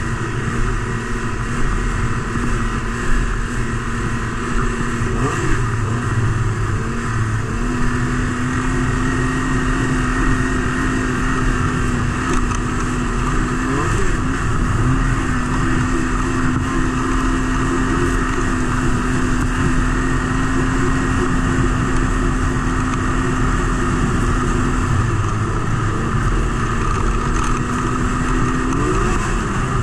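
Snowmobile engine and track running at steady cruising speed on a groomed trail. The engine note holds level, with three brief throttle changes.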